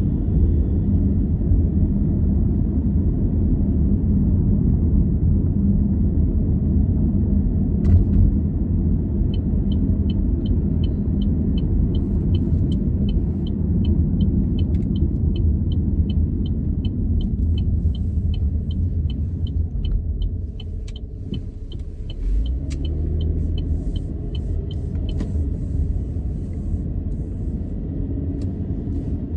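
Steady low rumble of a car's engine and tyres heard from inside the cabin while driving. About a third of the way in, a turn-signal indicator starts ticking evenly, roughly two to three clicks a second, and stops a little after two-thirds; the rumble eases off partway through as the car slows.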